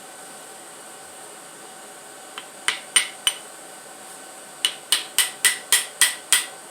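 Sharp metal-on-metal hammer taps knocking at a stuck part during the teardown of a 225 slant-six engine. There are a few spaced taps about halfway through, then a quick even run of about four taps a second near the end.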